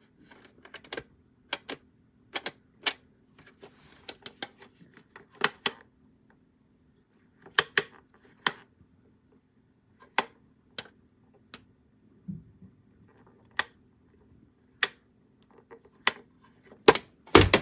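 A series of sharp, irregular clicks and taps, about thirty in all, with a quick cluster of louder ones near the end, over a faint steady low hum.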